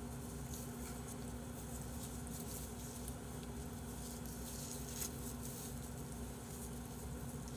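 Faint rustling and small ticks of hands folding a ssam, a leaf wrapped around pork and chives, over a steady low hum. One slightly sharper tick comes about five seconds in.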